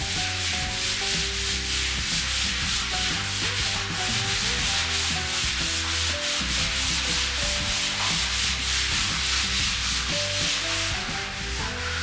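Background music with a bass line that changes note about once a second and a short stepping melody, under an even rhythmic hiss pulsing about four to five times a second.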